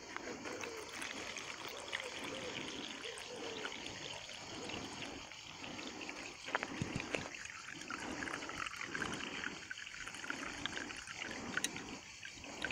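Dirty stream water poured steadily from a metal camping pot into a hanging plastic-bottle filter, splashing and trickling onto the layer of grass and pebbles inside.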